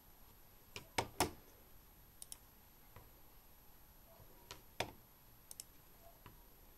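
Faint, scattered clicks as a Razer DeathAdder gaming mouse is handled, the loudest a pair about a second in.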